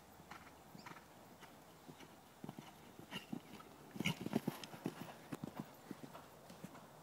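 Hoofbeats of a horse cantering on a sand arena, a quick run of soft thuds that grow loudest as it passes close about four seconds in, then fade as it moves away.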